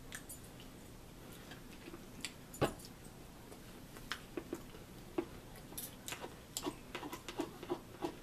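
Table eating sounds: a fork clicking and scraping against a bowl, with small chewing and mouth noises. There is one louder knock about two and a half seconds in as a plastic water bottle is set down on the table, and quicker small clicks in the second half.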